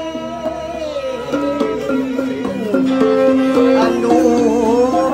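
Gabbang, the Tausug bamboo xylophone, struck in quick runs of short notes, louder and busier from about halfway through, with a singer's wavering melody over it.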